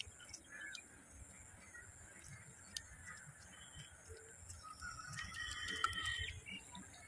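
Faint chewing and the tearing of crispy fried chicken eaten by hand, with birds calling; one louder call comes a little over five seconds in.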